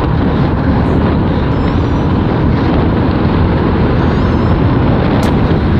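Loud, steady rush of wind buffeting the microphone over road and engine noise from a motorcycle riding at speed.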